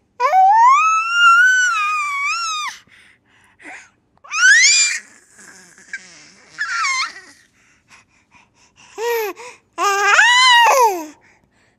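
A baby's high-pitched vocal squeals. One long squeal rises and falls over nearly three seconds at the start, then shorter squeals come in bursts, the last one swooping up and down near the end.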